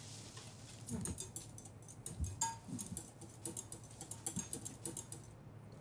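A wire balloon whisk stirring thick cake batter in a glass bowl: faint, irregular clicks and taps of the wires against the glass, with a few soft knocks.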